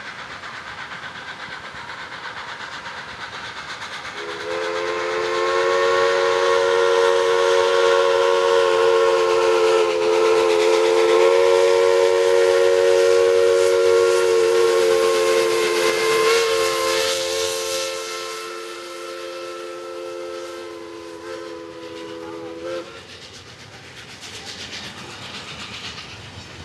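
Steam locomotive No. 7470 coming on with a rumble, then its chime steam whistle sounding one long blast of about eighteen seconds, starting about four seconds in and cutting off sharply. After that the passenger coaches roll past close by with wheel clatter.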